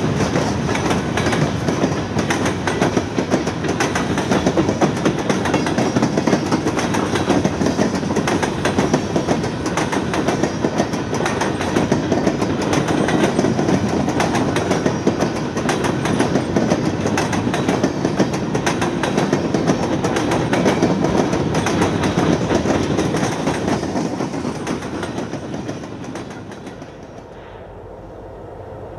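Freight cars rolling past at close range: steel wheels clattering over the rail joints in a steady clickety-clack. The sound drops away about two seconds before the end.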